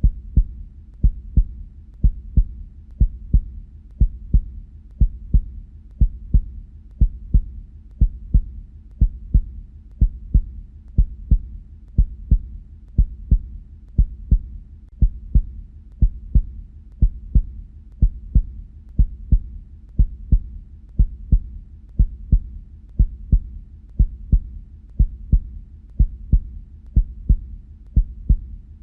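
Human heartbeat: paired lub-dub thuds, about one beat a second in an even rhythm, the sound of the heart valves closing.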